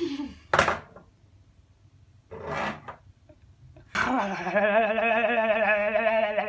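A young man's voice: a short falling vocal sound and a couple of breathy exhales, then, about four seconds in, a long note sung or hummed with a heavy wobbling vibrato, held for about three seconds.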